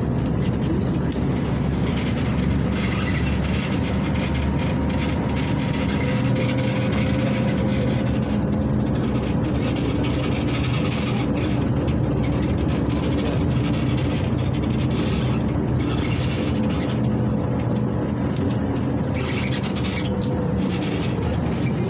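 Interior noise of a moving LiAZ 6213.21 articulated city bus: its MAN D0836 six-cylinder diesel engine runs steadily under tyre and road noise, with a faint steady whine through the middle.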